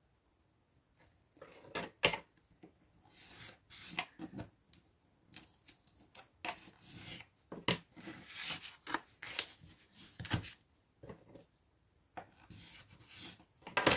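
Bone folder rubbing along a clear acrylic ruler to score 65 lb cardstock, in short scraping strokes with scattered light clicks and taps of paper and ruler on the table.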